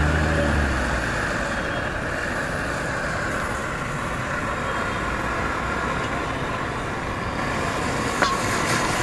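Steady roar of a street-food stall's gas burner under an iron pan, with street traffic noise behind it. A single sharp metal clack of a spatula striking the pan comes about eight seconds in.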